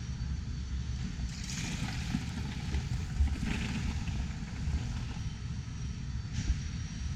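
Steady low rumble of a large exhibition hall's background noise, with a brief rise of hiss in the middle.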